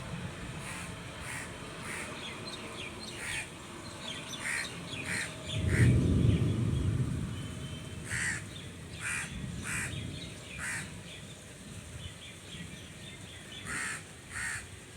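Crows cawing, short calls repeated in several bouts. About six seconds in, a low rumble swells and fades over a couple of seconds; it is the loudest sound.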